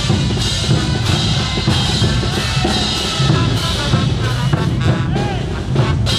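Bolivian marching brass band playing in the street: drums keep a steady beat under the band.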